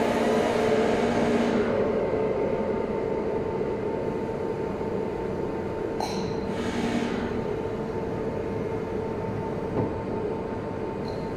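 Forklift running: a steady mechanical hum with a held whine, with a brief high-pitched blip about six seconds in and another near the end.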